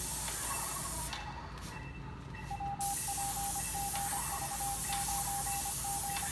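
Airless paint sprayer gun hissing as it sprays paint onto wooden siding; the spray stops for about two seconds a second in, then starts again abruptly.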